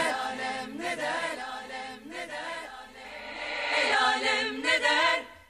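Closing bars of a Turkish pop song: several singing voices in wordless harmony over light backing. The music dips, swells again and then cuts off just before the end.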